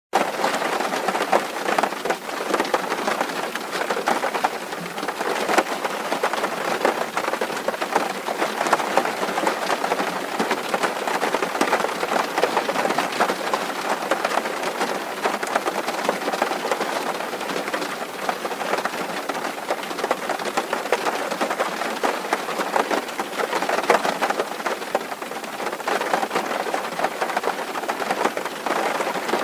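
Steady rain falling on a metal roof: a dense, even crackle of countless drop hits, with no thunder.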